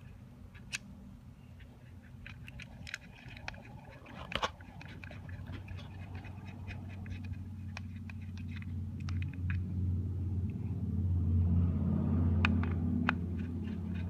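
Small metal clicks and taps as screws, washers and a steel bracket are handled and fitted onto a plastic lock housing, with one louder clatter about four seconds in. Under them a low steady hum, like a motor running, grows louder through the second half.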